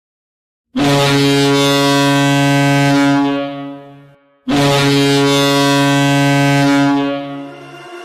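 Hockey arena goal horn sounding two long, steady blasts, each fading out, with a short gap between, signalling a home-team goal.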